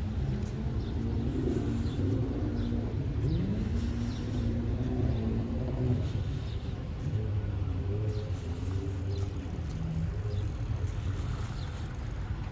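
Motor engine running over a steady low rumble; its pitch rises about three seconds in and then holds steady, and another engine note follows in the second half.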